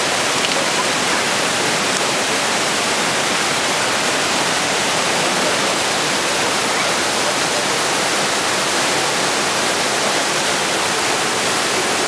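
Mountain stream rushing through a narrow rock gorge: a steady, loud hiss of white water that does not let up.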